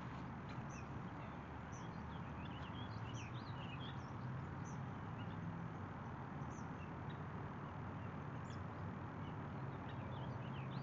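Small birds chirping, many short high calls scattered throughout, over a steady low background hum.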